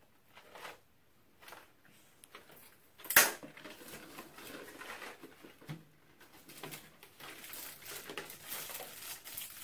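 Small cardboard candy boxes and packaging being handled and put into a cardboard box: irregular rustling and light clattering, with one sharp knock about three seconds in.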